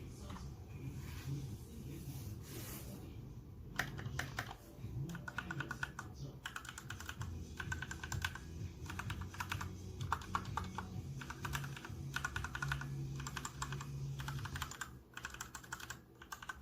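Typing on a Royal Kludge RK61 mechanical keyboard: light keystrokes at first, then fast runs of key clicks with short pauses from about four seconds in.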